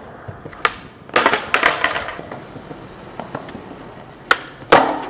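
Skateboard on smooth concrete: a sharp tail pop about half a second in, then a run of clattering board and wheel clacks from about one to two seconds in. Near the end comes another pop, followed half a second later by the loudest slap of the board landing.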